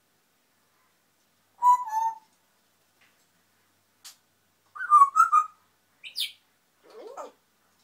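African grey parrot chattering to itself: a string of separate short whistles, squeaks and muttered calls with gliding pitch, about five in all, with pauses between them.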